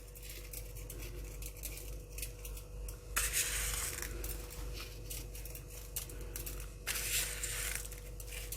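Roasted sesame seeds being crushed between the fingers and sprinkled over cooked rice: light crackling and rustling, with two longer rustles about three and seven seconds in.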